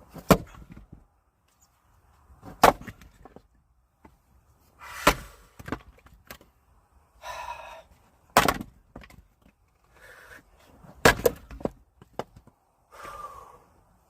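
Axe splitting firewood: five sharp chopping strikes, roughly one every two and a half to three seconds, with smaller knocks and brief cracking of wood between them.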